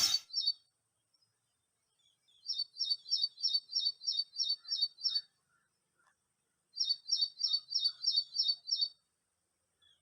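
A small bird calling in the background: quick runs of high, evenly spaced chirps, about four a second, each run lasting two to three seconds, heard twice.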